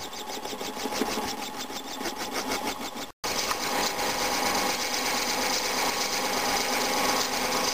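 Metal lathe running, its chuck spinning a duralumin blank while a turning tool cuts it: a steady machine hum and cutting noise. It cuts out briefly about three seconds in and comes back louder.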